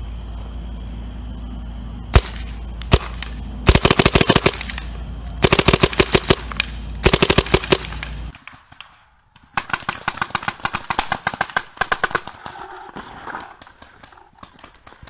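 Adrenalin Angel LCD electropneumatic paintball marker firing: two single shots, then three rapid strings of shots. About eight seconds in the sound changes to a quieter recording of the marker ripping off further rapid strings.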